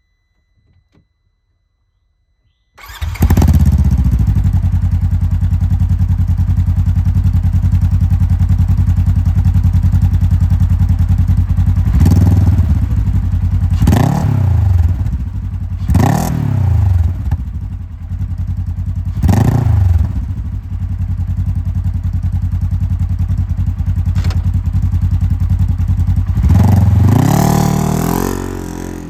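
A 2022 Polaris RZR Trail S 1000's twin-cylinder engine, breathing through an aftermarket Assassins slip-on muffler, starting up about three seconds in and settling to a loud idle. It is then revved in about four short throttle blips and one longer rev near the end.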